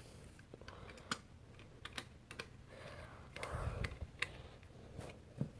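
Light, irregular clicks and taps of hard plastic and metal parts being handled on an Autocall fire alarm pull station, with a soft rustling thump about three and a half seconds in.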